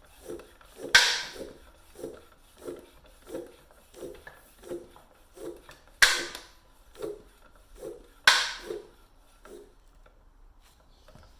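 Floor pump worked in steady strokes, about one and a half a second, inflating a Pirelli P Zero Race TLR tubeless road tyre, with three loud sharp pops, about a second in, at about six seconds and about two seconds later, as the tyre beads snap into place on the rim. The pumping stops near the end.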